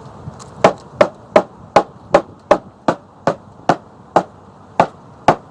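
A bee package or cage being rapped hard against something, a dozen sharp knocks at about three a second, to jar the bees out of it.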